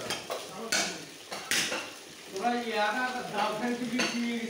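A butcher's knife scraping and clicking as it cuts a cow's hide away from the carcass: a few sharp clicks over rough scraping.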